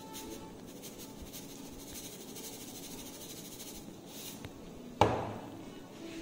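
Salt shaken from a canister into a small glass bowl while a fork stirs the dip, heard as faint light ticking and scraping with a brief hiss. About five seconds in comes a single sharp knock, the canister set down on the wooden table.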